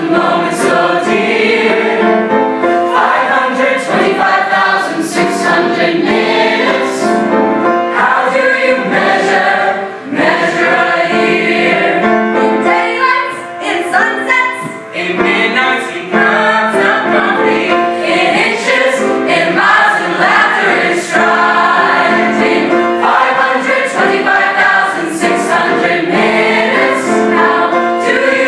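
A large stage ensemble of men and women singing together in harmony, full chorus with no pause.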